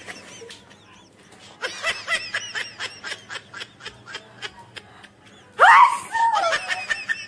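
A person laughing in a quick run of short giggling bursts, then a loud, high vocal cry that sweeps up and back down in pitch near the end.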